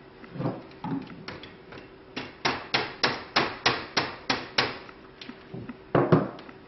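A small hammer tapping a part of a plantation shutter, a quick even run of about nine light taps setting a replacement piece in flush, with a few scattered knocks before and after.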